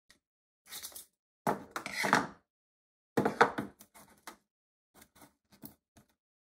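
Kapton tape being pulled off its roll and pressed around a stack of tin cans: two loud rasping pulls about a second and a half apart, followed by a few light clicks and taps as the cans are handled.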